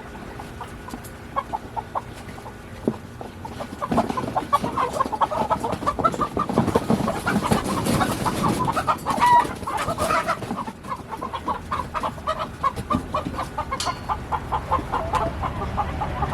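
Chickens clucking and squawking, sparse at first, then a dense run of rapid alarm calls about four seconds in, with scuffling: disturbed birds in the coop while roosters are being caught.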